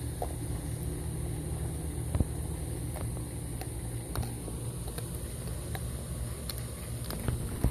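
Dogs chewing frozen chicken feet, with scattered sharp cracks and crunches. The loudest come about two seconds in and just before the end, over a steady low hum.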